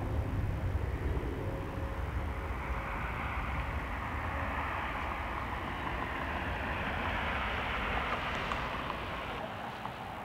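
Jet engines of a Southwest Airlines Boeing 737 at takeoff power as it lifts off and climbs away: a steady rumble and roar whose tone shifts slowly as the plane passes, easing a little near the end.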